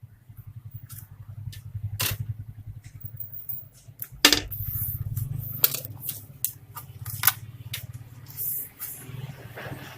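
Sharp clicks and knocks of small plastic and metal laptop parts being handled during disassembly, over a steady low hum.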